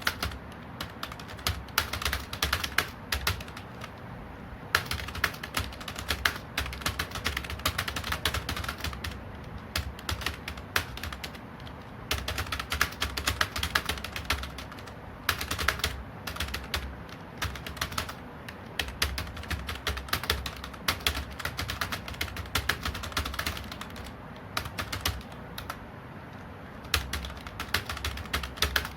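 Fast typing on a computer keyboard: rapid runs of keystrokes, broken by short pauses every few seconds.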